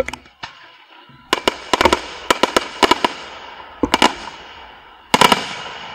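Fireworks display: aerial shells bursting in quick runs of sharp bangs, one group starting about a second in, a few near four seconds and a loud cluster near the end, with a steady hiss between the bursts.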